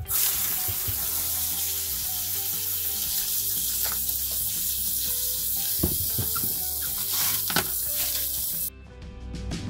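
Garden hose spray nozzle jetting water onto tumbled stones and ceramic media in a plastic sieve, rinsing off coarse grit slurry: a steady hiss that cuts off suddenly near the end, with a few clicks of stones stirred by hand.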